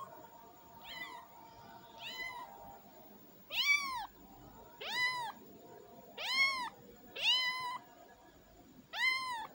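Very young tabby kitten mewing repeatedly: about eight high, thin mews, each rising and then falling in pitch. The first few are faint, and from a few seconds in they come louder, roughly one a second.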